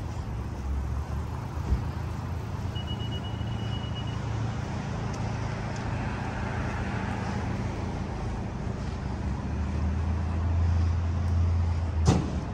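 City street traffic: cars passing on a multi-lane road over a steady low rumble. A brief high tone sounds about three seconds in, a heavier vehicle's low engine rumble builds near the end, and a sharp knock comes just before the end.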